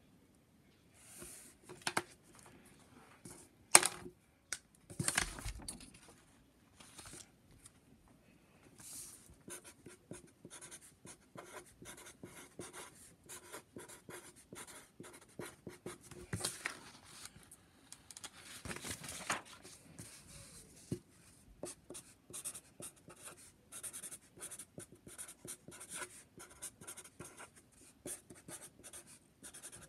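Pencil and Sharpie permanent marker writing on paper in many short scratching strokes. There is a sharp click about four seconds in and a knock about five seconds in.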